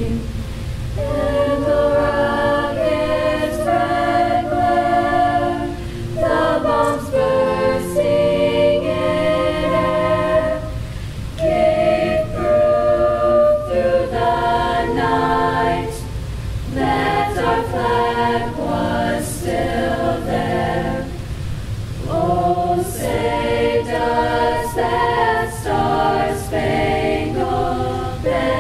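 High-school a cappella choir singing a national anthem, several voices unaccompanied, in phrases with short breaks between them, over a steady low rumble.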